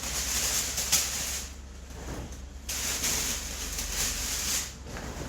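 Two stretches of even hiss, the first about a second and a half long with a sharp click about a second in, the second about two seconds long, over a low steady hum.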